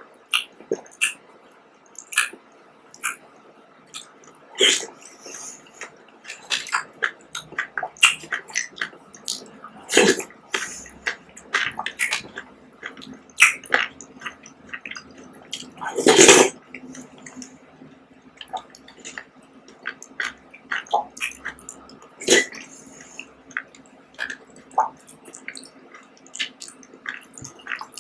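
Close-miked wet eating sounds: a metal spoon scooping soft fruit jelly from plastic cups, with mouth squelches, slurps and chewing of jelly and red grapes. It comes as many short, irregular smacks and clicks, the loudest about sixteen seconds in.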